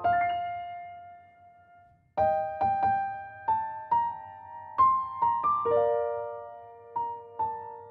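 Gentle background piano music: struck notes that ring and die away, fading almost to nothing about two seconds in before the tune picks up again.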